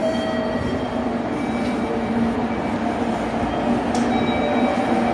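Electric commuter train standing at the platform with its doors open, giving a steady hum from its running equipment, with a few faint high tones coming and going.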